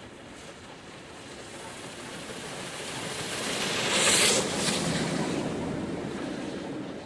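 LNER A4 three-cylinder Pacific steam locomotive 60019 Bittern passing beneath at speed. Its exhaust rushes louder as it approaches, peaks in a sharp blast of steam about four seconds in as the chimney passes under, then eases as the train runs away.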